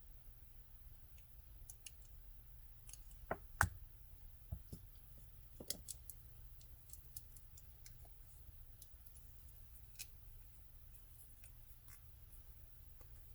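Faint clicks and light taps of small nail tips and tools being handled on a work surface. A few louder knocks come between about three and six seconds in, the loudest near three and a half seconds, over a steady low hum.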